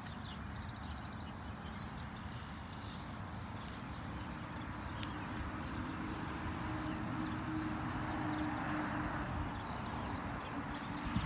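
Footsteps on grass while walking, over a low, uneven rumble on the microphone; a faint steady hum comes in about halfway through.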